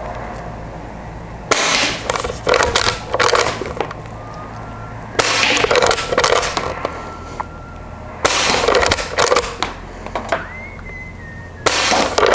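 Elite Force Legends shell-ejecting lever-action CO2 airsoft rifle fired four times, about three seconds apart. Each shot is followed at once by the clacks of the lever being worked to throw out the shell and chamber the next round.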